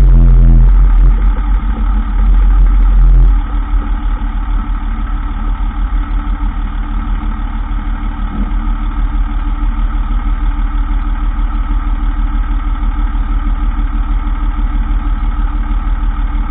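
2003 Dodge Ram 2500 pickup running at idle. For about the first three seconds a loud low hum sits over the engine, then it drops away suddenly, leaving the steady engine idle. The hum fits the noise the owner blames on the transfer case, which he says keeps going for a while after switching from 4x4 back to 2WD and then stops.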